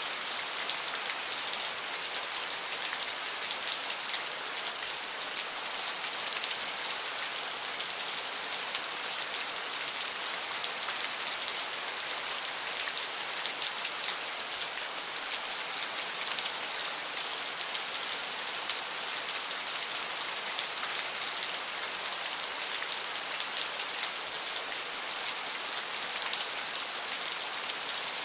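Steady rain: a dense, even hiss with a fine patter of individual drops.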